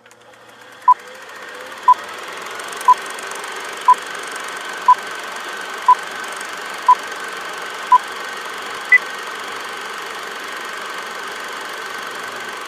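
Electronic beeps over a steady hiss that fades in: eight short beeps at one pitch, once a second, then a single higher-pitched beep about nine seconds in, like a countdown.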